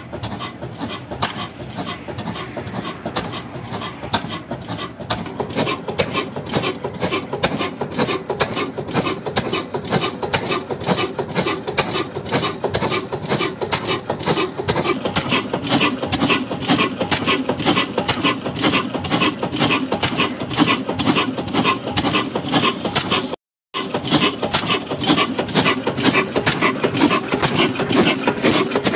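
Old 20 HP stationary diesel engine of the Ruston Hornsby type, running at a steady speed with a fast, even chugging beat. The sound grows louder about halfway through and cuts out for a moment near the end.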